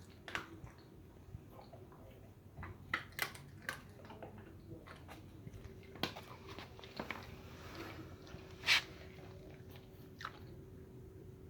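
A Belgian Malinois chewing and crunching its breakfast, with irregular crunches and bites and one louder crunch near the end.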